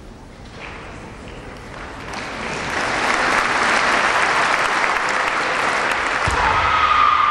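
Audience applauding, swelling over the first couple of seconds and then holding steady. Near the end a dull thud is followed by a long high-pitched cry over the applause.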